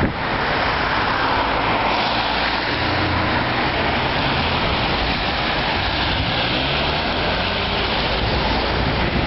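Steady noise of a moving vehicle heard from inside the cabin: tyres hissing on a wet road with the engine running underneath, and rain on the vehicle.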